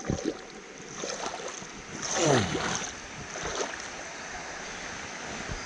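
Creek water lapping and sloshing against an inflatable river tube, with a louder swishing splash a little over two seconds in.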